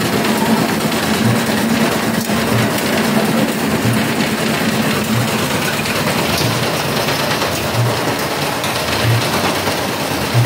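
Inclined screw conveyor running while carrying granular animal feed: a steady mechanical drone with a low hum and a soft, regular knock about every second and a quarter.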